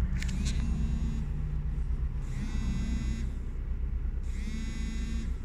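Steady low rumble of a car heard from inside its cabin. A higher tone with overtones sounds twice, about two seconds apart, each lasting about a second.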